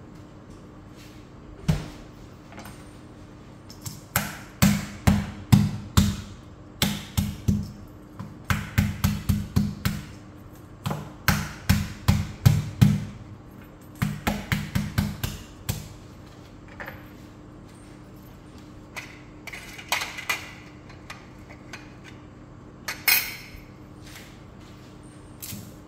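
Kitchen knife chopping lemongrass stalks on a plastic cutting board, in quick runs of strikes about four a second with a dull thud each. The chopping stops about two-thirds of the way through, leaving a few scattered knocks and one scrape.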